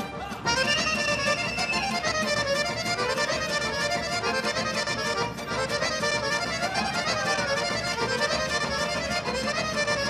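Traditional Serbian folk dance tune played by a folk orchestra led by accordion. There is a short break right at the start, and the tune comes back in about half a second in.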